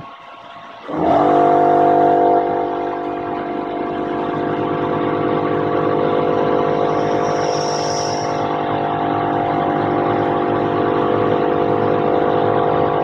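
HiTorque mini mill's end mill cutting aluminium on a finishing pass around the part's outer edge: a loud, steady pitched whine with many overtones that starts abruptly about a second in.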